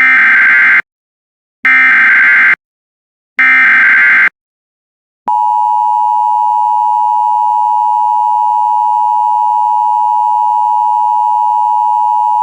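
Emergency Alert System SAME header: three short bursts of screeching digital data, evenly spaced. About five seconds in, the steady EAS attention tone begins and holds at one pitch.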